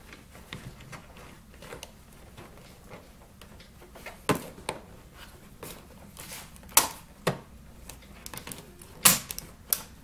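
Irregular clicks and knocks of a choke cable being worked into the plastic dash of an Arctic Cat snowmobile by hand, with sharper knocks about four, seven and nine seconds in.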